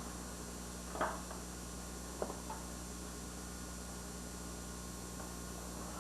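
Quiet room tone with a steady low hum and hiss, broken by a short faint sound about a second in and a sharp click a little after two seconds.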